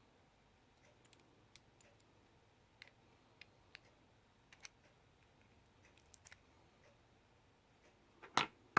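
Faint, scattered small clicks and ticks of metal lock parts and picking tools being handled, with a louder knock near the end.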